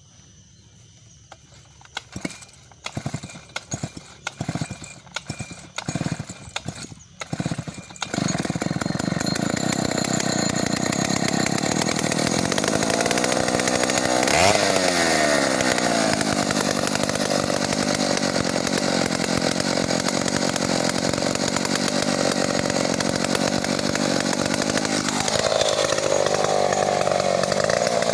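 Two-stroke chainsaw being pull-started: a few short bursts as it is pulled and sputters, catching about eight seconds in and then running steadily. Its pitch rises and falls once around the middle and drops and wavers near the end.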